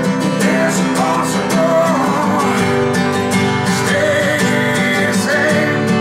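Acoustic blues: an acoustic guitar strummed in a steady rhythm, with a man singing over it.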